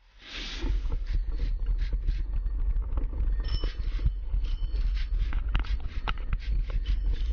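Mountain bike rattling over a rough dirt track, picked up by a GoPro mounted on the bike: a constant low rumble with many sharp knocks and clatters as the bike jolts over the ruts.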